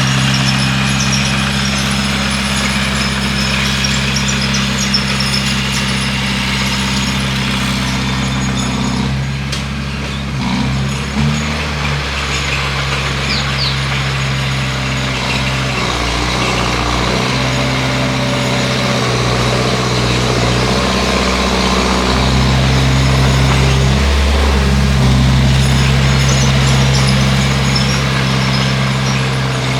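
Bulldozer's diesel engine running steadily under work, its note dipping and shifting briefly about ten seconds in and again a little past two-thirds of the way through.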